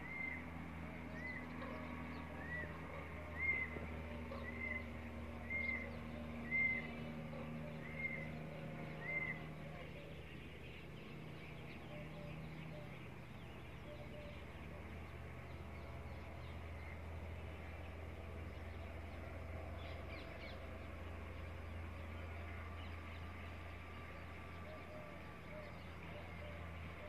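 Peafowl giving a series of about nine short, sharp calls, roughly one a second, over the first nine seconds, as an alert. After that only a faint steady low hum remains.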